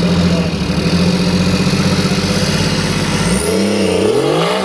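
Off-road trial vehicle's engine pulling with a steady, labouring note as it works over a tree stump in mud. About three and a half seconds in, the revs start to rise and fall in swings.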